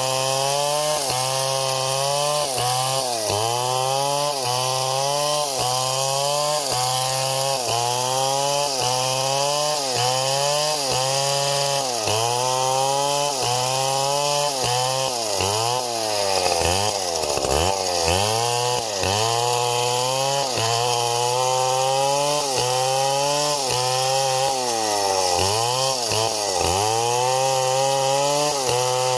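Chainsaw cutting wood, its engine pitch dipping under load and recovering about once a second, over a steady hiss of the chain in the cut.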